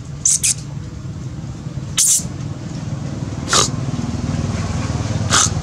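A macaque giving short, high-pitched squeaks: two in quick succession near the start, then single ones about two seconds in, about three and a half seconds in and near the end, over a steady low hum.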